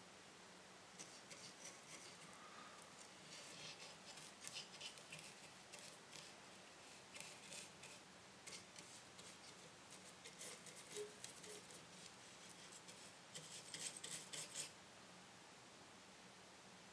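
Faint, irregular scratching and light ticking as insulating varnish is worked onto a bare circuit board, with a denser flurry near the end.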